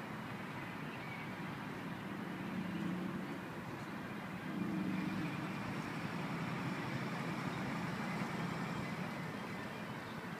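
Amphibious tour bus's engine running steadily as it cruises through dock water, a low drone that grows a little louder about halfway through.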